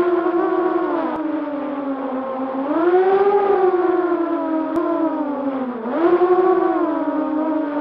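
FPV quadcopter's electric motors and propellers whining. The pitch swells and sags with the throttle, climbing about three seconds in and again sharply near six seconds.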